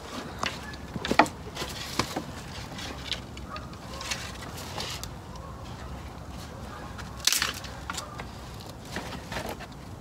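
Footsteps crunching on dry leaf litter and the irregular knocks and crackles of dead sticks being picked up and handled, with one louder crack about seven seconds in.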